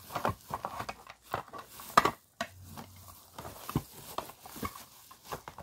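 Small items and their packaging being handled close at hand: irregular clicks, taps and light rustling, with one sharper click about two seconds in.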